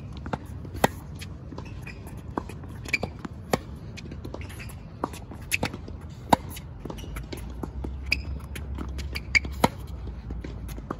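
Tennis rally on a hard court: sharp pops of rackets striking the ball and the ball bouncing, the loudest hits coming about every three seconds.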